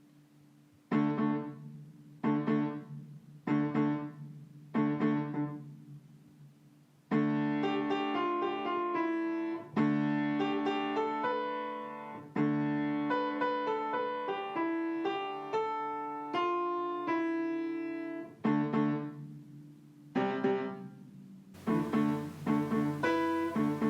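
Piano music. There are four separate struck chords about a second and a half apart, then a flowing passage of overlapping notes, then spaced chords again near the end.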